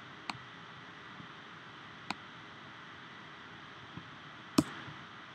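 A few sharp clicks from working the computer, the loudest about four and a half seconds in, over the computer's steady whirring hiss.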